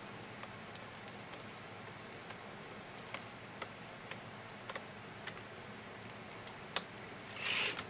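Light, irregular clicking of a metal latch tool against the needles and latches of an LK100 knitting machine as stitches are worked by hand, with a brief louder hiss near the end.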